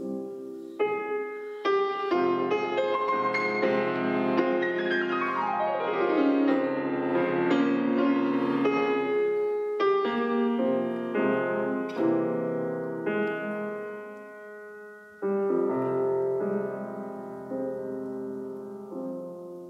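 Concert grand piano playing classical music: loud struck chords and a fast descending run about a third of the way in, then softer playing, with one more chord about three-quarters of the way in that dies away.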